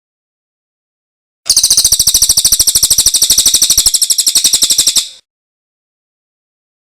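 Songbird trill: one rapid, even run of high chip notes that starts about one and a half seconds in and lasts about three and a half seconds.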